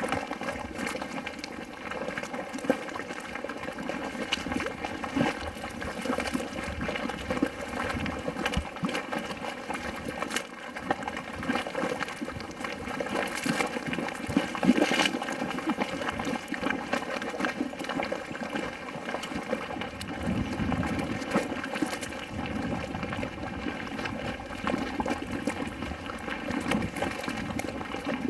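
Geothermal mud pool boiling: thick mud bubbling with a steady run of irregular plops and pops, one louder pop about halfway through.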